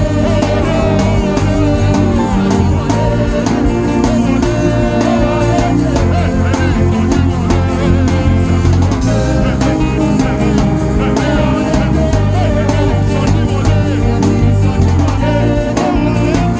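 Live gospel band music with a steady drum beat, bass and guitar, with some singing over it.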